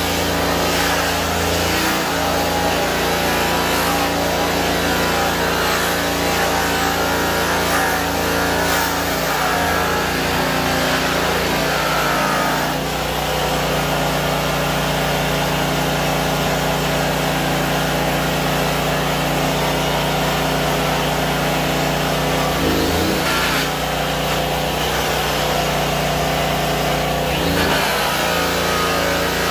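High-speed handheld rotary sander and polisher running against a stainless steel tank, a steady machine whine whose pitch shifts several times.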